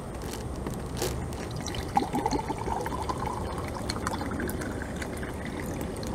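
Water poured from a plastic bottle into a glass, the pouring tone rising steadily in pitch as the glass fills, with a few light clicks of the bottle against the glass.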